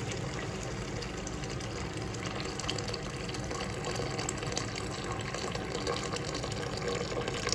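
Hot water being poured into a pan of cooked curry spice paste: a steady pour of liquid with small scattered ticks.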